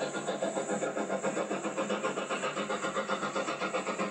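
Steam train running at speed, with a fast, even beat of about five to six pulses a second.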